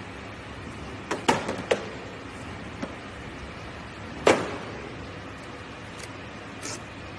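Cardboard facial tissue boxes being handled and pulled apart: a quick cluster of sharp cardboard snaps and clicks about a second in, then a single loud knock about four seconds in as a box hits the floor, over a faint steady machine hum.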